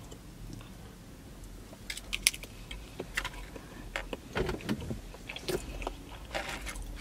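Close-up sounds of a person chewing and eating macaroni and cheese: wet mouth noises and lip smacks, with a run of short, sharp clicks starting about two seconds in.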